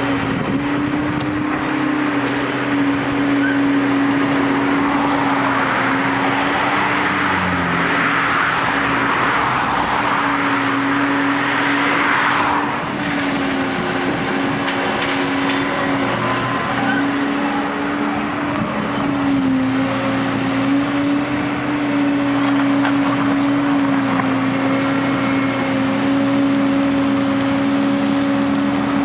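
Liebherr A316 Litronic wheeled excavator working: a steady diesel engine and hydraulic pump hum that wavers slightly in pitch as the machine works. A rushing noise comes in from about five seconds in and stops suddenly a little after twelve seconds.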